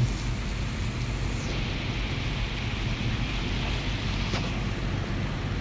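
Steady rain falling outdoors, an even hiss over a constant low rumble. The hiss swells for a few seconds in the middle.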